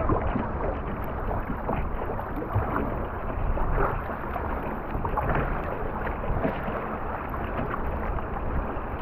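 River water rushing and splashing steadily around a kayak, with small irregular splashes.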